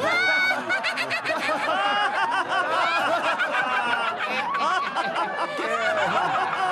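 Cartoon characters laughing: several voices snickering and chuckling together in one long, unbroken fit of laughter.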